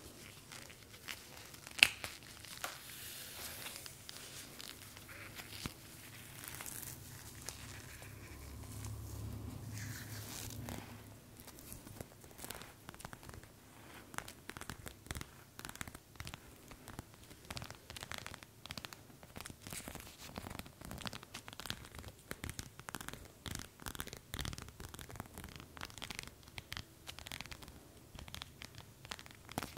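ASMR trigger sounds of objects being crinkled, scratched and tapped close to the microphone. There is one sharp click about two seconds in, and a dense run of quick small crackles and taps through the second half.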